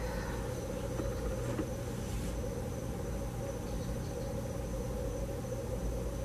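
Steady low room hum with a thin, faint high-pitched whine over it, and no voices.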